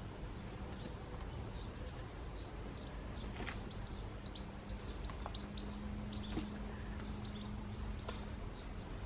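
Small birds chirping in short, high notes scattered throughout, with a few sharp clicks from handling potatoes and soil and a faint steady low hum underneath.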